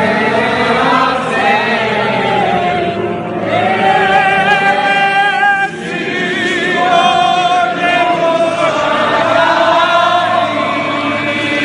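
A crowd of many voices singing together in unison, holding long drawn-out notes.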